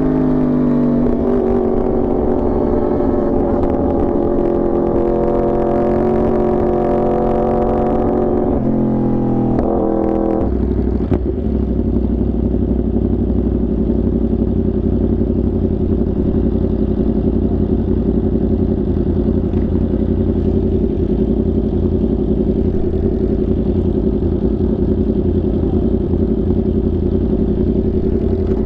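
Yamaha R1 motorcycle engine running at steady revs, its pitch stepping down once or twice, then dropping about ten seconds in to a lower, even note that holds steady.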